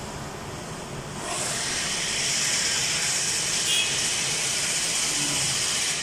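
A steady hiss starts about a second in and holds, louder than the room noise before it.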